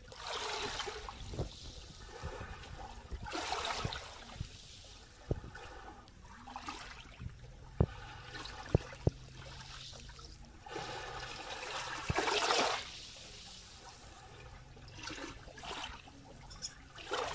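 Small waves lapping and washing over sand in shallow water, each wash swelling and fading every few seconds. A few sharp clicks stand out near the middle.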